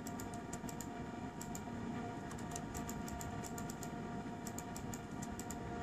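Typing on a laptop keyboard: irregular runs of light key clicks over a steady background hum.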